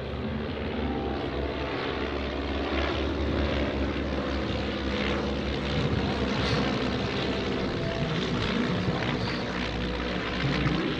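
Piston engines of Stampe SV-4C biplanes, rated at 140 horsepower, droning steadily as the aircraft fly their display, with the pitch falling as they pass about halfway through.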